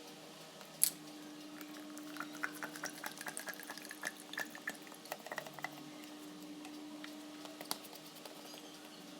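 Liquid seasoning being poured into a bottle, splashing and trickling with a faint tone that rises slightly as it fills. A single sharp click comes just under a second in.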